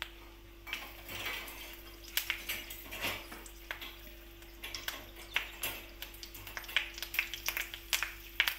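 Curry leaves crackling and spluttering in hot oil in a steel kadhai, with irregular sharp pops starting about a second in and continuing.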